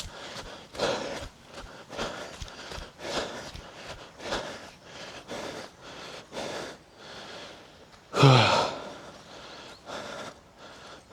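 Runner's heavy breathing, hard breaths about once a second, with one louder voiced exhale about eight seconds in that falls in pitch.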